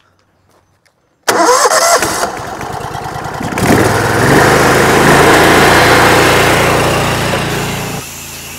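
Pressure washer's gas engine cutting in suddenly about a second in and running loud, with a hissing water spray swelling from about four seconds. Near the end it drops to a steady, quieter engine hum.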